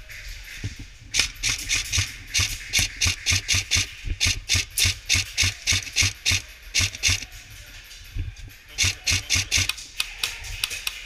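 Airsoft electric rifle firing fast semi-automatic shots, each a sharp crack with a low thump, about five a second: one long string from about a second in to about seven seconds, then a pause and a shorter string near the end.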